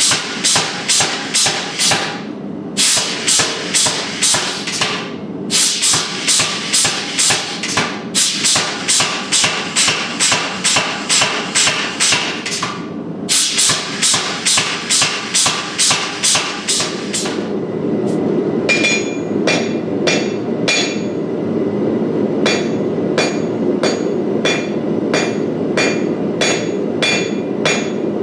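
Hand hammer striking steel in quick, even runs of about three blows a second, with short pauses between runs, while forging a small ladle bowl. From about 18 seconds in, the blows ring out metallically over a steady rushing noise.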